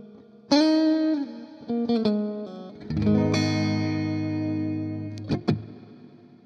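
Electric guitar played through the Amplitube Fender Twin Reverb amp model with its reverb pedal on: a few single notes, then a chord about three seconds in that rings out and slowly fades with a reverb tail. Two short sharp clicks come about five seconds in.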